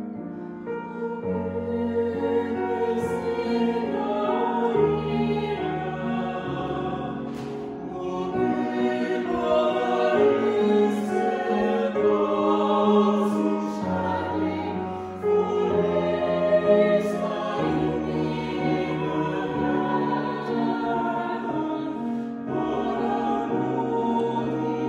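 A small mixed vocal ensemble singing a slow choral blessing in Swedish, with long held low notes beneath the voices.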